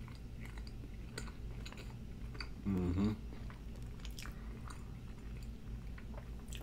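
Close-miked chewing of a mouthful of McDonald's Big Mac, with small mouth clicks throughout. A short hum about three seconds in.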